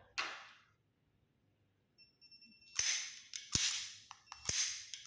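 A short electronic beep, then sharp snapping clicks about a second apart, each trailing off in a hiss.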